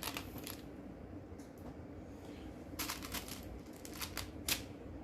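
Small plastic Lego pieces clicking as they are handled and pressed together, a few sharp clicks at the start and a quick cluster about three seconds in.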